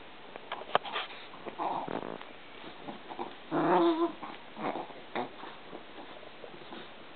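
Chihuahua growling, the loudest growl lasting about half a second around three and a half seconds in, among scattered sharp clicks.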